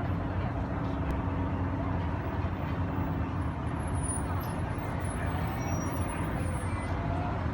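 A steady low mechanical rumble with a faint hum, like a running engine.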